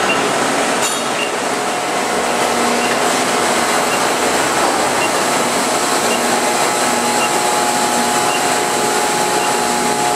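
Loud, steady factory machinery noise on an injection-molding plant floor, with a thin steady whine coming in about a second and a half in.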